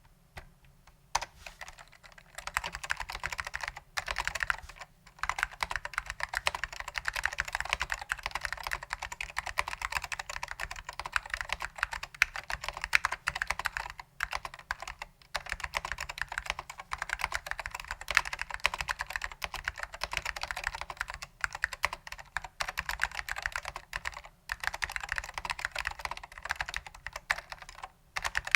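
Fast continuous typing on a vintage Apple Standard Keyboard M0116 with Alps SKCM Orange switches, lubed with dry lube, giving rapid key clacks with a few brief pauses.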